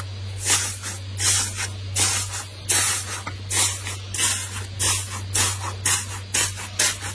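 Hand pressing into the dried crust of a pan of slime, which crunches and crackles with each press. There are about ten crunchy presses, roughly one every 0.7 seconds.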